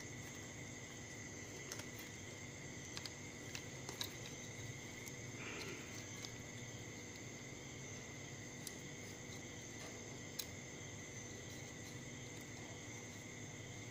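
A few light, scattered clicks of power transistors and screws being handled and fitted against a finned aluminium heatsink on an amplifier circuit board, over a steady faint background with a thin high tone.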